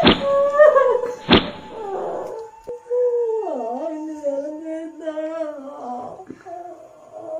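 Two sharp whacks of a wooden stick about a second apart, then a woman's long, wavering wail that drops in pitch partway through and fades out.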